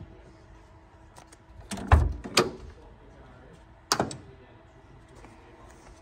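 Van door being worked: latch clicks, then a heavy clunk about two seconds in, a second knock just after, and another clunk about four seconds in.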